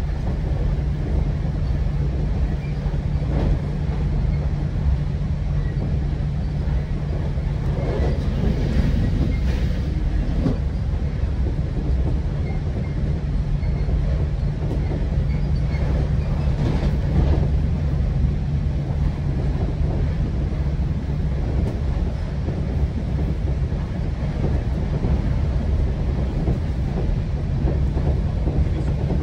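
GO Transit bilevel passenger train running between stations, heard from inside a coach: a steady low rumble and hum, with scattered clicks of the wheels over the rails.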